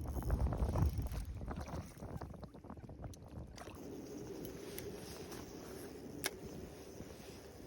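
Wind buffeting the microphone with handling rustle for the first second or so. From about halfway in, a steady low whir sets in, and there is a single sharp click near the end.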